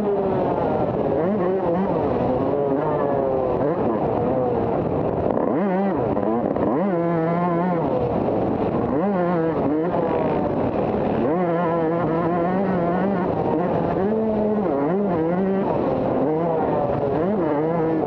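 Motocross bike's engine, heard from the rider's onboard camera, revving up and easing off again and again as the bike accelerates, shifts and slows around a dirt track. Its pitch rises and falls every second or two, with brief stretches held at a steady pitch.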